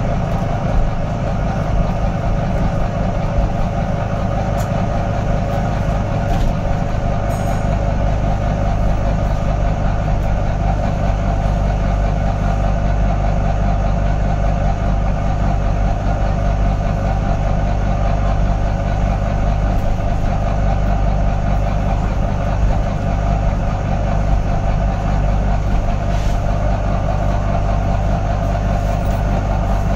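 Volvo B9TL double-decker bus's six-cylinder diesel engine running with a steady drone, heard from inside on the upper deck.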